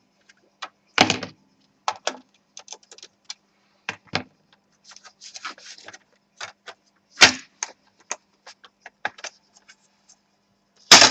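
Plastic palm rest cover of a laptop being pried off, its clips clicking and snapping loose in an irregular scatter of sharp clicks, with a few louder snaps about a second in, about seven seconds in and at the end.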